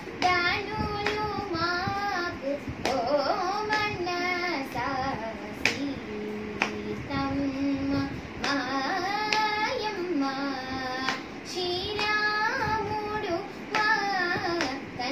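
A girl singing a Carnatic song solo, her notes sliding and bending in ornamented turns, while she keeps the tala with her hand, which gives a sharp slap every so often.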